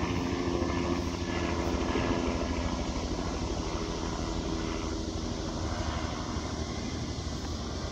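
The twin electric motors and propellers of a Horizon Hobby X-Vert VTOL model buzzing in flight, a steady hum that weakens after a few seconds. Wind rumbles on the microphone underneath.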